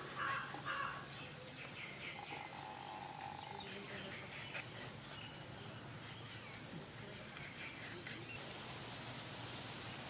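Birds chirping and calling, loudest right at the start, with one short steady whistled note a couple of seconds in, over a faint steady high hiss.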